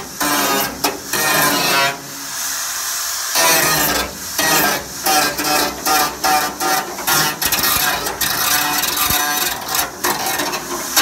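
Background music with plucked guitar, with a short stretch of high hiss about two seconds in.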